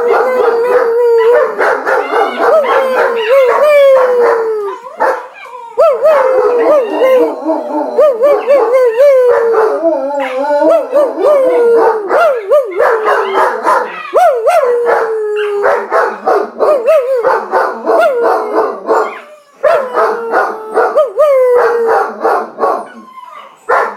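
Dogs howling in long, wavering howls that overlap, with a few short breaks.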